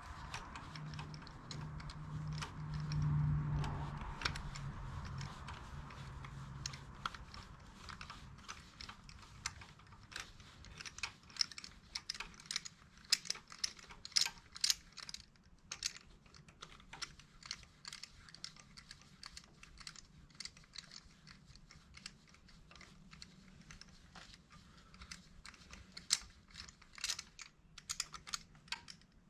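Irregular small clicks and clinks of hand-tool work on metal, with a low steady hum for the first several seconds.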